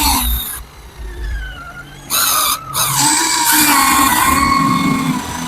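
Huina 1594 RC excavator's electric motors and gearboxes whining, the pitch gliding up and down as the arm and tracks are worked. A short rough noisy burst comes about two seconds in, and the whine is strongest and steadiest near the end.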